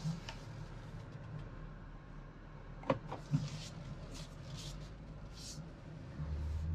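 Interior of a BMW X3 M40i with its 3.0-litre turbocharged inline-six idling as a low, steady hum while the car reverses. There are two short clicks about three seconds in, and soft rustles as the steering wheel is turned hand over hand. About six seconds in, a louder low engine rumble comes in as the car pulls away.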